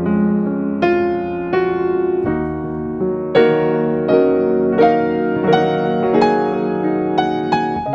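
Background piano music: single notes and chords struck at a gentle, steady pace.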